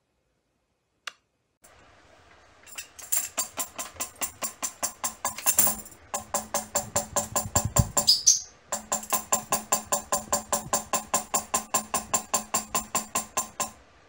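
A cockatiel pecking a small wooden tambourine in a fast, even beat of about four strikes a second, the metal jingles rattling with each hit. It pauses briefly twice, with a short high glide in one of the pauses.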